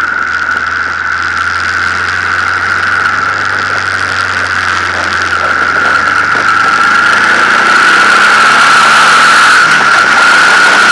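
Honda VTX 1800's V-twin engine, heard from a camera on the bike as it rides on and then accelerates. The engine note rises in the second half while wind rush builds with speed. A steady high whistle sits over it all and is the loudest sound throughout.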